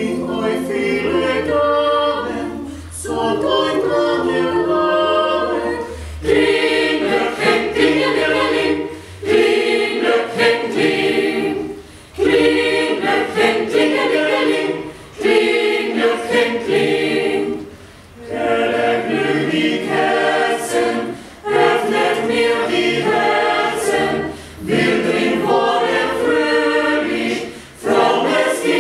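Mixed choir of women's and men's voices singing a German Christmas carol a cappella, in phrases of about three seconds with short breath breaks between them.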